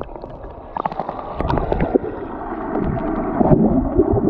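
Muffled underwater water noise heard through a submerged action camera: a low rushing and gurgling with scattered small clicks and knocks, the high end dulled by the water.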